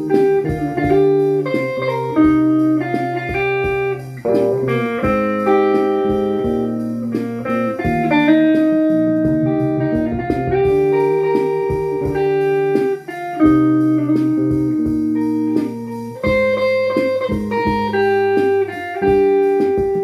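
Two guitars playing a song with no voice: a plucked melody line over a chord accompaniment, note after note throughout.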